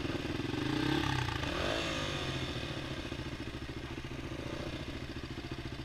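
Single-cylinder Honda dirt bike engines idling close by, with one engine revving up and falling back about a second in before the steady idle goes on.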